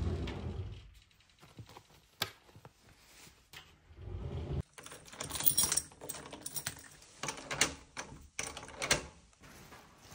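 A bunch of keys jangling and a door lock clicking: a run of sharp metallic clicks and jingles in the second half. Scattered knocks and rustles of handling come before it.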